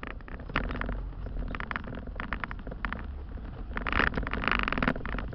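Off-road vehicle driving over rough, uneven dirt: a steady low engine and road rumble under constant clattering and knocking as the cab jolts, with harsh louder bursts about four seconds in.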